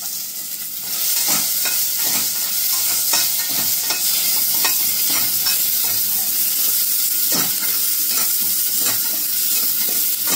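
Sliced onions and green chillies sizzling in coconut oil in a stainless steel pot over a very high flame, with a metal spoon scraping and clinking against the pot as they are stirred. The sizzle grows louder about a second in.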